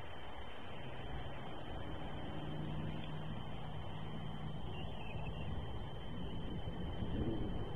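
Low, steady drone of a distant engine over constant background hiss and a faint steady high whine, growing a little louder near the end.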